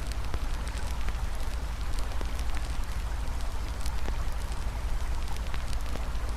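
Campfire crackling, with many scattered sharp pops, over a steady rush of flowing river water and a low rumble.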